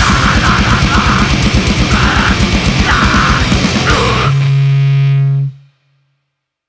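Grindcore band playing: distorted guitars and bass over very fast blast-beat drumming, with screamed vocals in short bursts. A little over four seconds in, the music stops on one held chord that rings for about a second and then cuts off.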